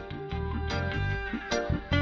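Instrumental theme music for a TV programme's break ident, with a steady bass line under plucked notes.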